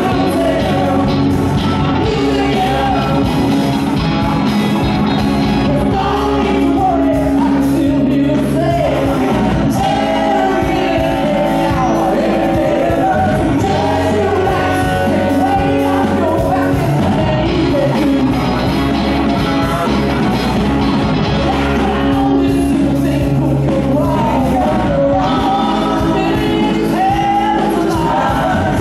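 Live rock band playing at a steady loud level, with electric guitars, bass, drums and keyboards under a male lead singer singing into a microphone.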